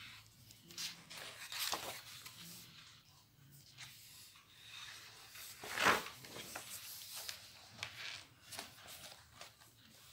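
Paper pages of a colouring book turned by hand: soft rustles and flicks, with one louder page flip about six seconds in.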